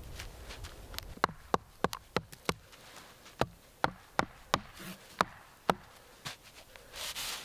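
A bent steel rod being hammered into a log with a wooden block: about a dozen sharp knocks, five in quick succession, then more spaced out. Near the end, rustling in sawdust.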